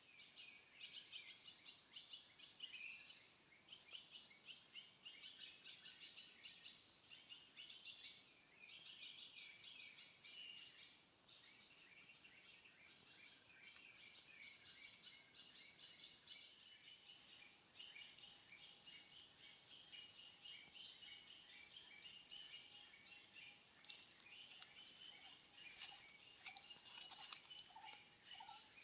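Forest ambience: many birds chirping and twittering over a steady high insect drone, with a lower call repeating several times near the end.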